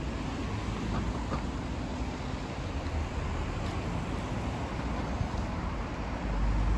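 Steady outdoor city ambience: a low rumble of traffic with some wind noise, the rumble swelling near the end.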